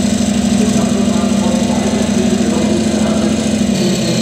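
Large-scale RC self-propelled howitzer model driving, giving a steady, loud engine-like drone. A faint high whine, falling in pitch, comes in near the end.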